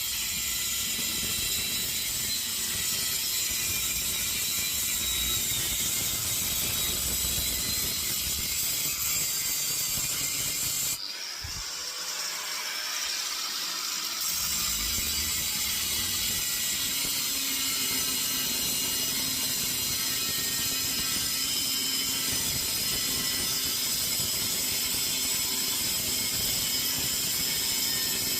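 Angle grinder with a new cutting disc cutting into the metal casing of a compressor, a steady high whine and grinding. It eases off briefly just after ten seconds in, then carries on.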